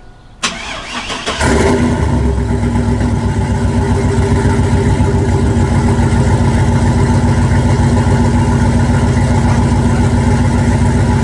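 2000 GMC Sierra's engine with aftermarket headers cold-started after sitting several days: a click and brief cranking, then it catches about a second and a half in and settles into a loud, steady fast idle.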